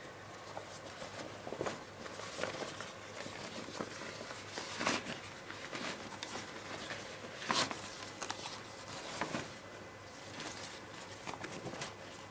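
Canvas field pack handled by hand: irregular rustling and scuffing of the fabric as flaps are lifted and the inside searched, with a few sharper scrapes about five and seven and a half seconds in.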